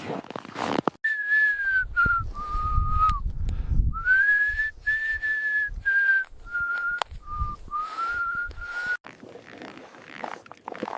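A person whistling a slow tune: one clear tone moving through held notes and short glides for about eight seconds, starting about a second in. A low rumble sits under the first few notes.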